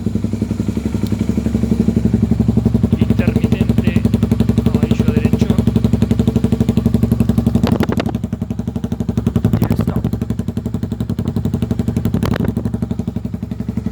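Honda Tornado's single-cylinder four-stroke engine idling with an even, steady beat, with a few sharp clicks in the second half.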